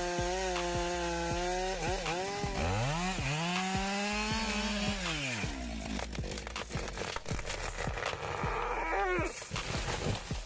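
Chainsaw engine running, its pitch sagging and then climbing back to a held high speed for a few seconds before dropping off, as when the saw is revved up into a cut and released.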